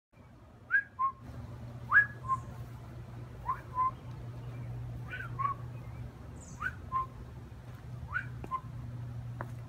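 A whistled two-note call, a quick rising note followed by a short lower one, repeated about every second and a half, over a steady low hum.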